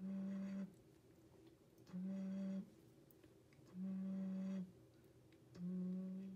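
Clay xun (vessel flute), not yet holed for fingers, blown in four short breathy notes at one low pitch, about two seconds apart: the mouthpiece being tested for the blowing edge that gives the best sound.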